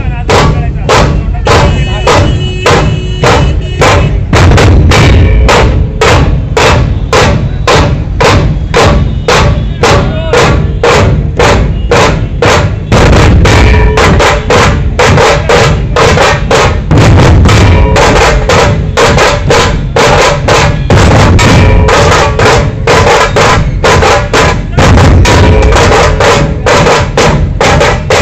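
A dhol pathak troupe of large two-headed dhol barrel drums playing a loud, fast, driving rhythm together.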